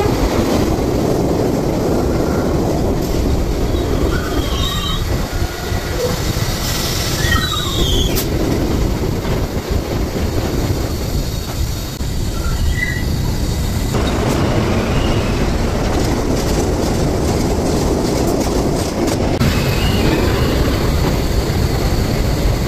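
New York City subway trains running through an underground station: a loud, steady rumble of steel wheels on rail, with several brief high-pitched wheel squeals.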